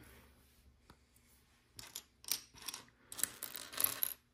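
Loose plastic LEGO pieces clicking and clattering as hands sift through a pile of bricks, a string of light clicks starting about two seconds in.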